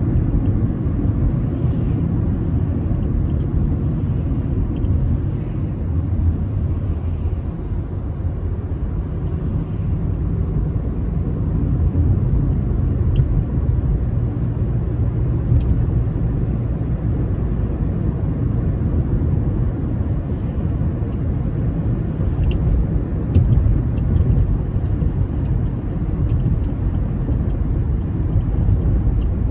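A steady low rumble, with a few faint ticks scattered through it.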